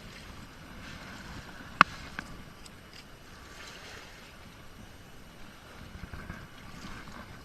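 Steady outdoor noise of wind and moving water, broken about two seconds in by one sharp knock, followed by a few lighter clicks.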